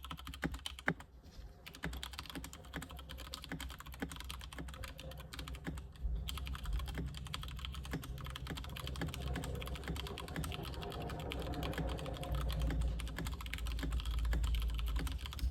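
Fast, continuous typing on a keyboard fitted with aftermarket keycaps: a dense run of key clicks and clacks. A low rumble underneath gets stronger in the second half.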